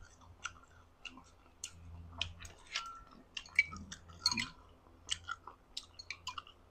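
A person chewing boiled chicken up close to the microphone, mukbang style: irregular mouth clicks and smacks, with the loudest cluster about four seconds in.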